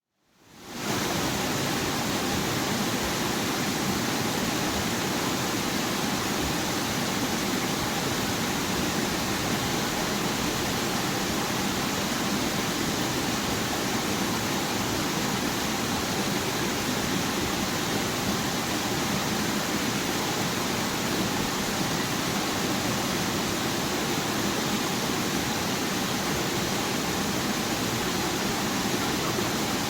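Waterfall water rushing steadily, fading in over the first second.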